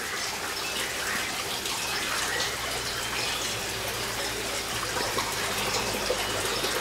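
Steady sound of running water, an even rushing hiss.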